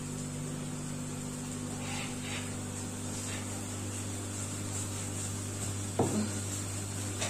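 A wooden rolling pin rolls out dough on a wooden board, giving a few faint light knocks, over a steady low hum with a faint hiss. A brief falling squeak comes about six seconds in.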